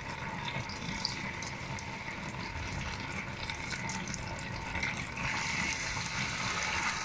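Grated raw potato frying in a pan of hot oil: a steady sizzle that grows a little louder about five seconds in as more of the rösti batter goes into the pan.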